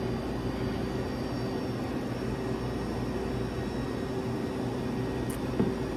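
Steady mechanical hum made of several constant low tones over a faint hiss, with a brief click and a small knock near the end.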